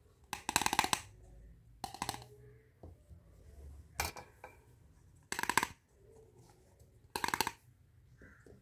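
Small plastic toy kitchen pieces clattering and knocking together as they are handled and set down, in about five short bursts.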